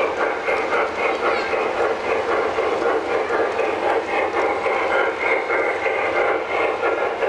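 O gauge model steam locomotive running on three-rail track, with a steady rhythmic chuffing and wheel-on-rail rumble.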